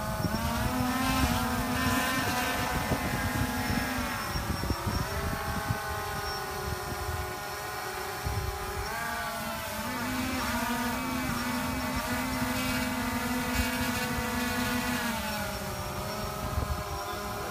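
DJI Phantom quadcopter's propellers whining as it hovers tethered to an RC truck, straining at full throttle without lifting it. The pitch wavers up and down as the throttle changes, easing around four to five seconds in and again around nine seconds in.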